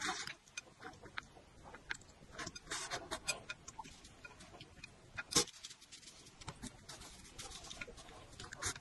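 Close-miked eating sounds of spicy instant noodles: a slurp of noodles at the start and another around three seconds in, then wet chewing and lip smacks with scattered clicks, one sharp click about five and a half seconds in.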